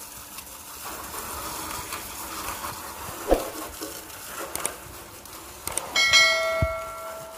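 Water from a garden hose spraying onto a motorcycle, a steady hiss and splash. About six seconds in, after a few clicks, a bell-like ding from a subscribe-button sound effect rings out and fades over about a second.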